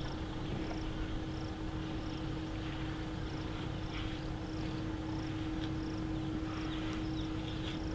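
Steady low rumble with a constant hum, over which a short high chirp repeats about twice a second and a few brief falling chirps sound.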